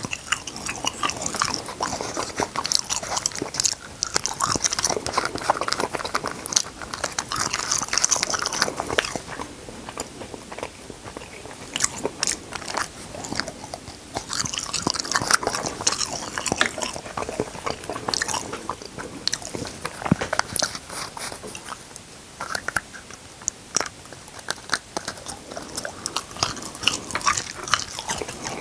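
Close-miked eating: biting and chewing with crisp crunching, many short crackles coming in irregular clusters.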